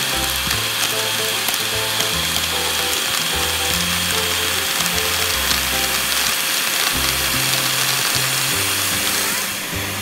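Black+Decker handheld vacuum running with a steady whine, Lego bricks clicking and rattling as they are sucked up into its clear plastic canister.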